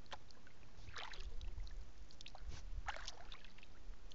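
Kayak paddle strokes in calm river water: splashes and drips from the paddle blades every second or two, over a steady low rumble.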